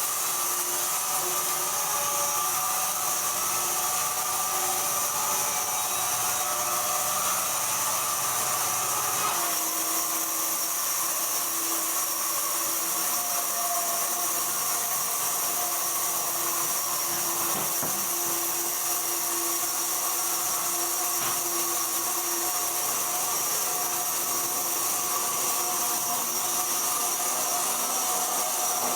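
Sawmill machinery running steadily, a continuous hiss with a few held tones that shift about nine seconds in.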